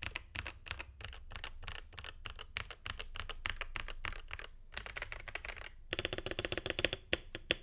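Typing on a stock Zuoya X86 Hall-effect keyboard: a fast, steady stream of keystroke clacks, with a quicker, denser run of strokes in the last second and a half.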